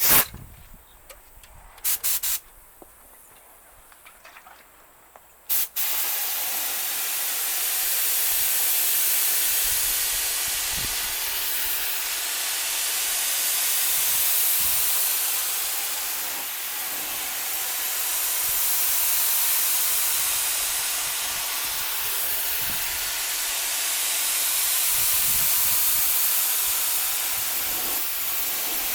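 Air spray gun spraying primer: a few short spurts as the trigger is pulled, then a steady hiss from about six seconds in that swells and eases slowly.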